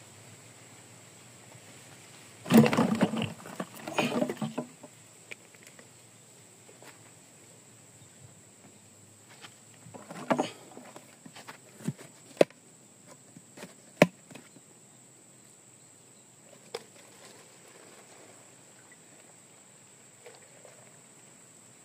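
Liquid poured from a plastic jug into a plastic bottle: a splashing gurgle for about two seconds near the start and a shorter one around ten seconds in. Several sharp clicks and knocks of plastic being handled follow.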